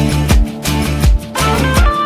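Music: an instrumental passage of a song with a steady drum beat and a sustained melody line that steps up in pitch about halfway through.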